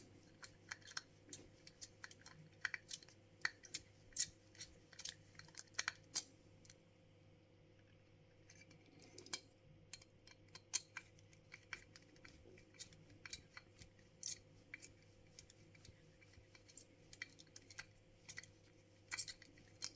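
Light, irregular clicks and taps of a small screwdriver working the screw out of the base of a die-cast model coach, with a pause of about two seconds around the middle.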